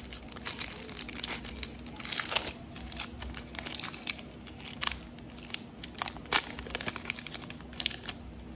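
Foil wrapper of a Prizm basketball card pack crinkling and tearing as it is ripped open and handled, in irregular sharp crackles with a few louder ones.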